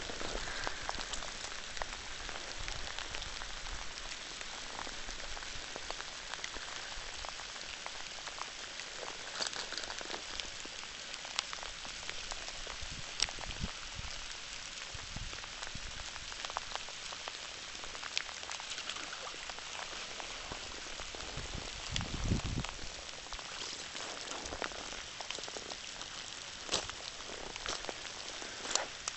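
Steady rain falling: an even hiss scattered with sharp ticks of single drops. A brief low rumble about three-quarters of the way through.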